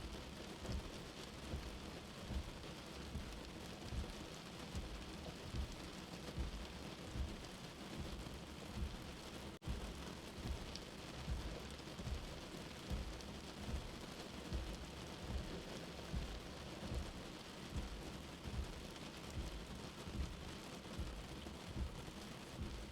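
Steady rain heard from inside, with a soft low heartbeat thumping about once every 0.8 seconds underneath. The sound briefly cuts out for an instant about ten seconds in.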